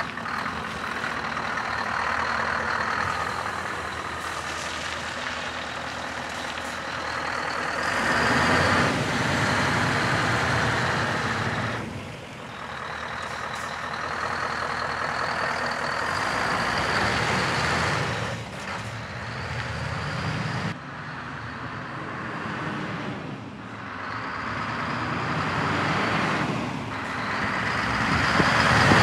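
Scania R500's 16-litre V8 diesel engine pulling the tractor unit around and away, the revs rising and falling several times, with a thin high whistle that follows the revs. It is loudest near the end as the truck comes close.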